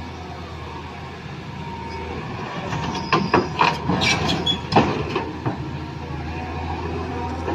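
Miniature remote-control excavator running with a steady low hum, with a quick cluster of sharp clacks and knocks near the middle.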